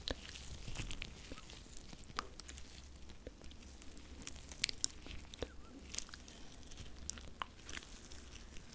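Close-miked ASMR hand sounds: hands rubbing and pressing together, giving irregular crackling, clicking sounds.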